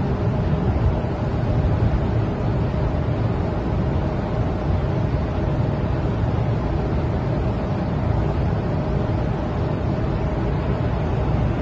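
Steady low rumble of a large ship under way, with a faint steady hum over it and wind noise.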